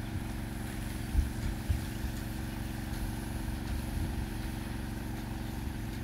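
A motor running steadily with a low, even hum, with a couple of brief low thumps of wind on the microphone.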